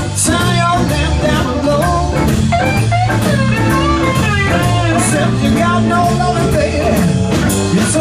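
Live blues-rock band playing: lap steel guitar lines sliding and bending in pitch over bass and drums.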